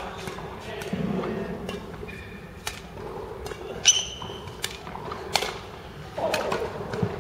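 Badminton rally: sharp clicks of rackets striking the shuttlecock, with a loud squeak about four seconds in, typical of a shoe on the sports floor, and faint voices.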